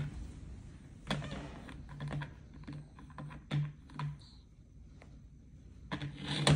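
Moluccan cockatoo's beak tapping and clicking on a plastic toy mirror, a few irregular taps with a cluster of quicker clicks near the end.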